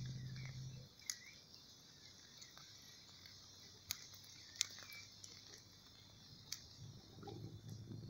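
Faint, steady high-pitched insect chorus of crickets, with a low buzzing hum that stops about a second in, a few sharp clicks and some short bird-like chirps.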